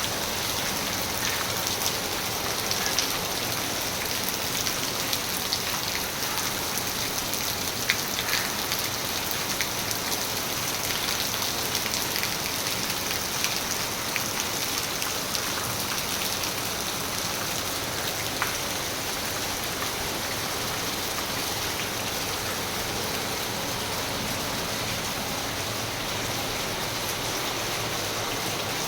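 Steady rain falling: a dense, even hiss with many small, sharp drop impacts scattered through it.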